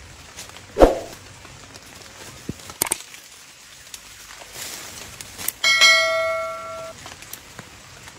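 A bell-like 'ding' sound effect that strikes suddenly and rings out, fading over about a second. Earlier there is a single sharp thump about a second in, and a few faint clicks.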